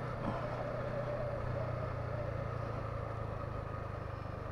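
Yamaha MT-15's single-cylinder engine running steadily at an even pitch.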